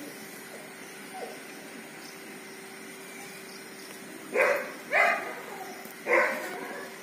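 A dog barking three times, starting a little over four seconds in: two barks close together, then a third about a second later.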